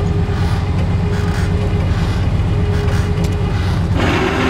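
Truck engine running steadily to drive the hydraulic crane, a low rumble under a steady hum. A hiss joins near the end.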